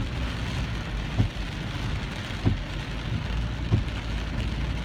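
Steady hiss of rain or water spray heard from inside a moving car, with engine and road noise underneath and a low thump about every second and a quarter.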